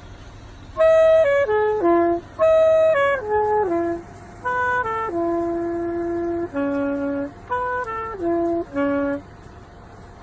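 A solo woodwind instrument played live, one note at a time, in two short melodic phrases with a brief pause between them.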